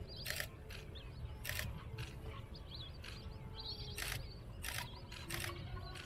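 DSLR camera shutters firing in short rapid bursts, about five times, over faint high bird chirps and a low steady rumble.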